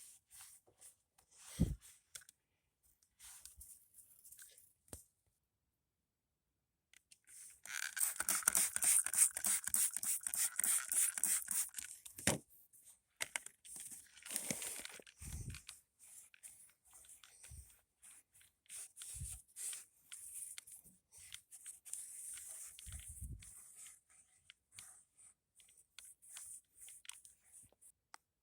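Hand cleaning of a wood chipper: rag rubbing and wiping over its surfaces, with scattered clicks and knocks. The rubbing is densest for a few seconds starting about eight seconds in, then comes and goes.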